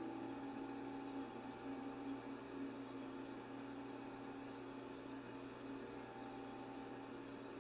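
Faint steady hum and hiss, with a few held tones and no distinct events.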